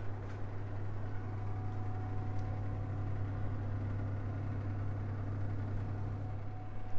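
Electric oven running while it heats up, a steady low hum from its fan that does not change.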